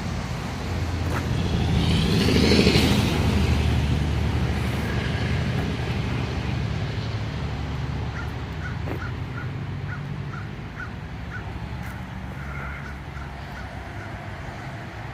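A motor vehicle engine running steadily, swelling about two seconds in and then slowly fading. Faint, evenly spaced high ticks come about twice a second in the second half.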